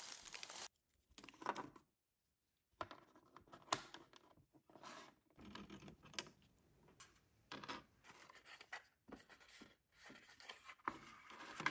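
Tiny plastic and paper miniature pieces handled close up: a small plastic packet crinkles, then little plastic parts tap and click into place and a miniature cardboard box is folded. These come as short, scattered scratchy rustles with sharp clicks between quiet gaps.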